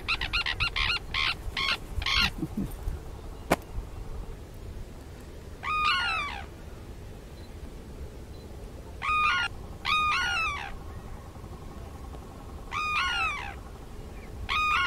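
A pair of sarus cranes trumpeting their unison call, the courtship duet of a mated pair: a rapid run of loud calls that stops about two seconds in. A single sharp click follows, then five spaced-out calls, each a short note falling in pitch.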